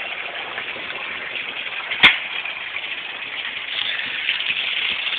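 Water running steadily as it drains from the flood-and-drain grow beds back into the fish tank, with one sharp knock about two seconds in.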